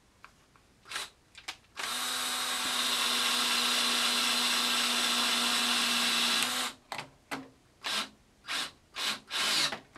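Power drill driving a pocket hole screw into plywood: a steady motor whine for about five seconds, then several short spurts of the motor near the end.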